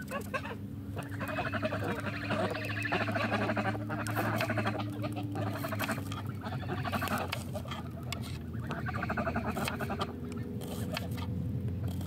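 Domestic fowl calling in two long stretches of chatter, from about a second in to six seconds and again around nine to ten seconds. Knife taps on a wooden cutting board as an onion is chopped, most of them near the end.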